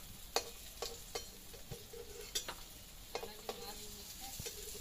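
Metal spatula scraping and clicking against a metal kadai as fried hilsa pieces are lifted out onto a metal plate, several irregular taps over a faint sizzle of frying oil.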